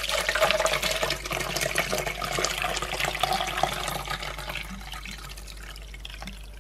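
Sugar syrup pouring from a pot through a mesh sieve into a measuring jug, a steady splashing stream that tapers off over the last couple of seconds.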